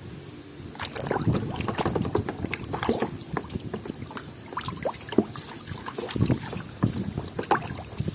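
Water sloshing and splashing as a muddy toy vehicle is washed by hand, with many irregular small knocks as it is handled, starting about a second in.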